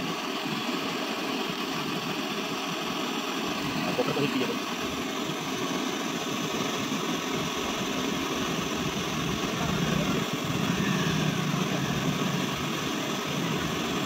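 Gas brazing torch flame hissing steadily while a copper refrigerant pipe joint on a fridge is brazed.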